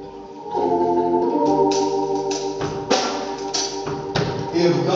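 Organ coming in about half a second in and playing sustained chords, with several sharp hits over it.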